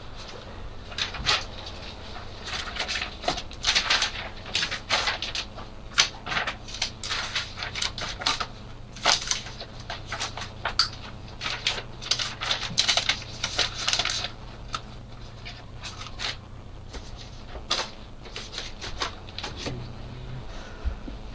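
Irregular clicks, knocks and rustling of objects being handled close by, busiest in the first two-thirds and thinning out toward the end, over a low steady hum.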